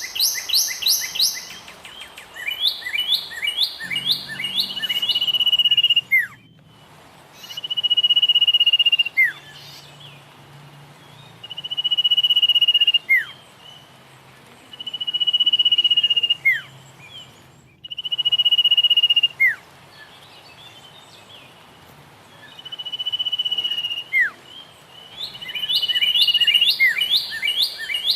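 Birdsong: long, steady whistled notes that swell in loudness and end in a quick falling note, repeated every three to four seconds, with quick runs of chirps at the start and again near the end.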